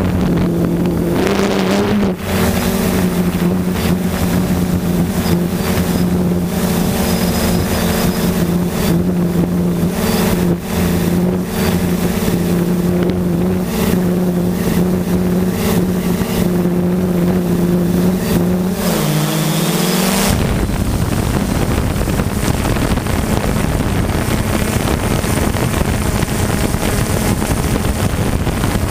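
3DR Solo quadcopter's motors and propellers humming at a steady pitch in flight. About two-thirds of the way through, the hum dips in pitch and gives way to a steady wind-like noise on the microphone.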